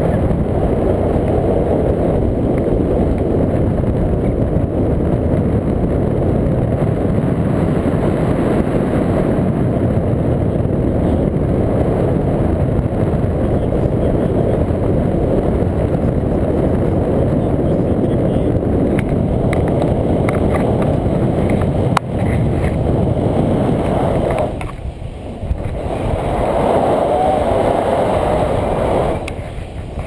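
Wind rushing over a paraglider's pole-mounted action-camera microphone in flight: a steady, loud rumbling roar that dips briefly twice near the end.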